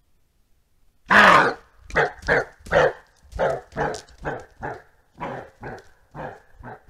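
Roe deer giving its alarm bark: about a dozen short, hoarse barks at roughly two a second, the first the loudest, the call of a startled deer.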